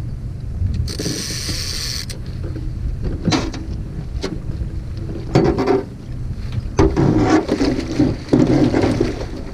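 A fishing reel and tackle being worked while a hooked fish is fought to the boat: mechanical clicking, rattling and knocks, busiest in the second half, over a steady low rumble of wind. There is a brief hiss about a second in.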